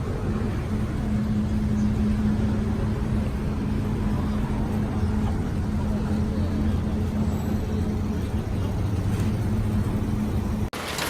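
Steady low mechanical drone with a constant hum, like a running engine, cut off abruptly near the end.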